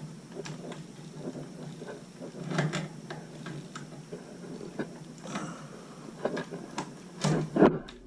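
Small clicks and scrapes of pliers working on metal parts of a gas water heater's control, with two louder knocks near the end.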